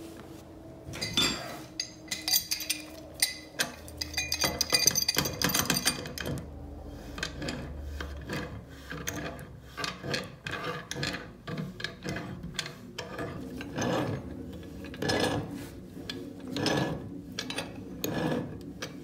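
Pipe wrench tightening a brass radiator union onto a threaded steel pipe elbow: metal clicking and scraping of the wrench jaws and the threads. There is a busy run of sharp clicks in the first few seconds, then short strokes about once a second.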